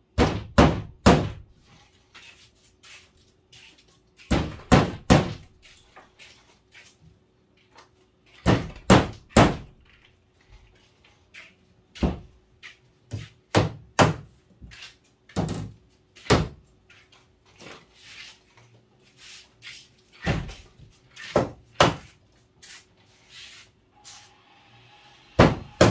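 Hammer blows on a wooden countertop, driving screws into the boards: sharp knocks in quick runs of three or four, then lighter single taps about a second apart, and one last hard blow near the end.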